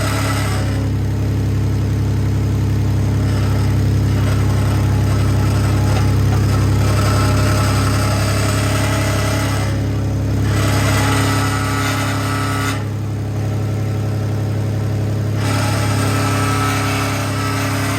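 Car engine running steadily, with an even, unchanging hum.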